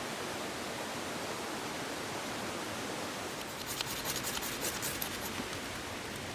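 Steady rush of a river running through the whole stretch. About halfway through comes a quick run of light scratchy clicks lasting about a second and a half.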